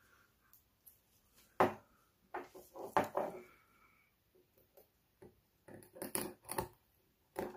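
Small metal and plastic handling sounds: irregular clicks, taps and scrapes as a small screwdriver pries at the welded metal tab joining two cylindrical rechargeable battery cells from a cordless hair clipper. There is a sharp click about a second and a half in, a busy run of scraping clicks around the three-second mark, more clicks around six seconds and a knock near the end.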